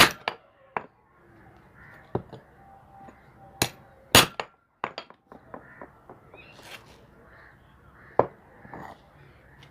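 Irregular sharp metal knocks and clinks, about eight strikes with the loudest about four seconds in: tools such as a hammer and chisel working a bearing off a washing machine motor shaft.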